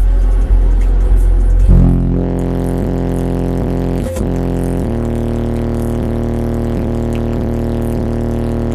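Car audio subwoofers playing a bass-heavy song at competition level, about 147.5 dB in the cabin on an SPL meter. A very deep bass first, then about two seconds in a steady low bass note with a buzzy stack of overtones that shifts to another note near five seconds and holds.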